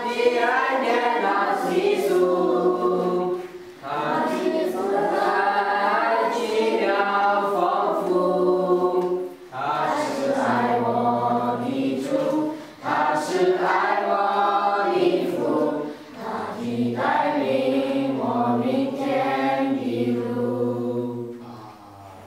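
A group of children singing together, in phrases a few seconds long with short pauses for breath between them.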